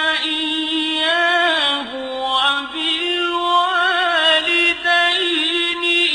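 A single voice in melodic Quran recitation, chanting in long held notes with wavering ornaments and short breaks between phrases.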